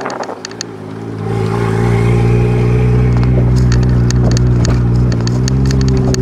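Toyota 1JZ-GTE twin-turbo straight-six in a BMW E46, heard from inside the cabin. About a second in it comes on load with a loud, even drone that holds nearly steady in pitch. Quick, light ticking clicks run over it.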